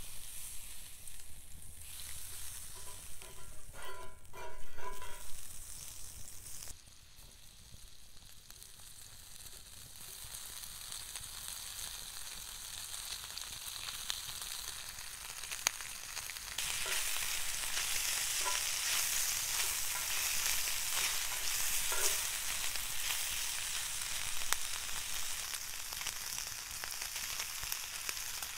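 Butter sizzling faintly as it is rubbed with wooden tongs over a hot cast iron grill pan, with a brief squeaky scraping about four seconds in. Then strips of raw steak sizzle on the pan as they are laid on, the sizzle jumping louder a little over halfway through and staying loud.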